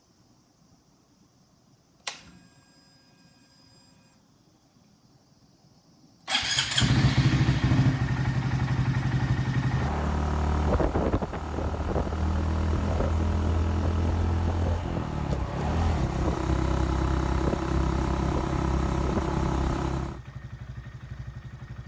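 Honda Monkey 125's single-cylinder engine starting suddenly about six seconds in, then running steadily at idle, with its pitch shifting a couple of times. A single click sounds about two seconds in, before the engine starts.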